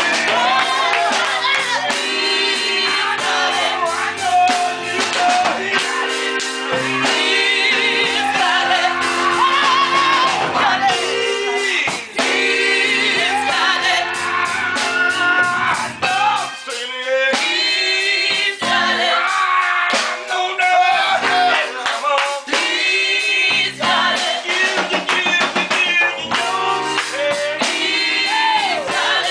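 Gospel group singing in mixed voices of men, women and a child, backed by an electronic keyboard and a drum kit.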